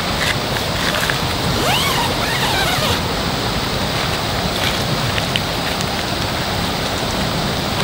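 A steady rushing noise with no distinct events, and a few short chirps about two seconds in, each rising then falling in pitch.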